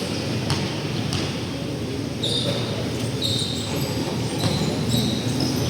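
Basketball game on an indoor court: a ball bouncing in a few sharp knocks, then short high sneaker squeaks on the floor from about two seconds in, over a steady crowd murmur.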